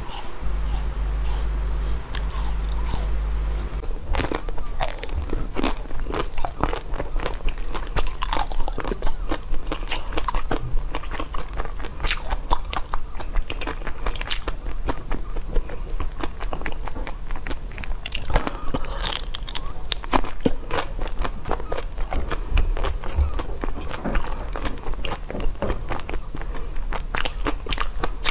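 Close-miked biting and crunching of frozen treats: sharp, irregular crunches and chewing. The first is a small dice-shaped frozen cube, over a low hum. Then, from about four seconds in, it is a pink frozen treat on a stick.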